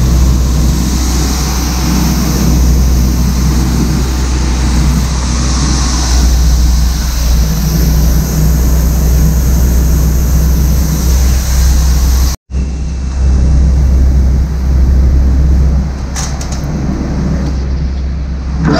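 Shelled corn pouring out of a gravity wagon's gate through a steel dump-pit grate, a steady rushing noise over a constant low machinery drone. The sound breaks off for an instant about twelve seconds in, then carries on.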